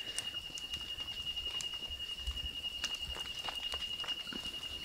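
A steady high-pitched insect trill runs on. Over it come soft, scattered clicks and patter as biryani rice is spooned onto a plate.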